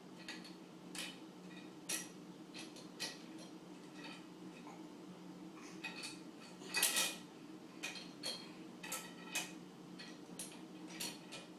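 Faint, scattered clicks and clinks of small hard objects being handled, over a low steady hum, with one longer, louder noise about seven seconds in.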